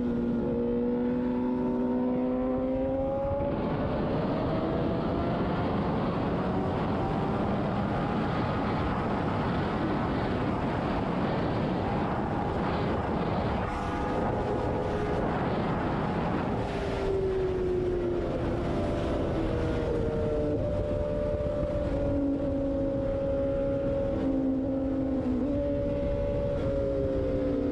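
A Yamaha motorcycle's engine running at road speed. Its note climbs slightly at first, then a rushing noise covers it for a long stretch. About two-thirds of the way through, the engine note comes back, drops, and settles to a steady cruise.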